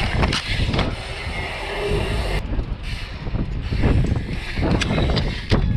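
Mountain bike riding down a rough trail: wind rushing over the microphone, with frequent sharp knocks and rattles from the bike over bumps.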